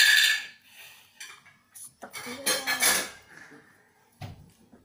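Plastic packaging crinkling as it is handled and pulled at: loud at the start, again for about a second from two seconds in, with softer handling noises between.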